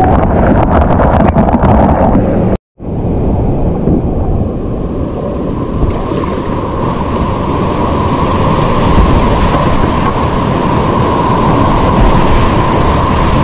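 Loud whitewater rapids rushing, heard close up on a body-mounted camera, with splashes and buffeting on the mic in the first couple of seconds. The sound cuts out completely for a fraction of a second about two and a half seconds in, then the steady rush of the rapids carries on.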